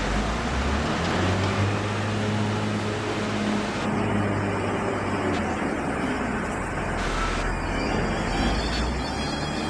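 Diesel engines of a Case IH tractor hauling a grain trailer and a JCB wheel loader running close by, a steady low engine hum that shifts in pitch about a second in and again about halfway through.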